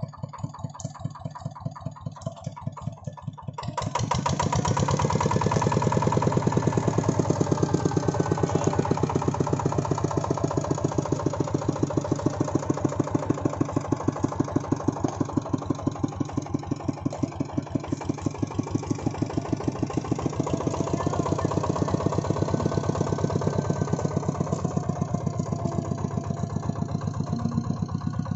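Single-cylinder RV145 diesel engine of a two-wheel tractor chugging with a rapid, even beat. About four seconds in it revs up and grows much louder, then keeps running at that higher level.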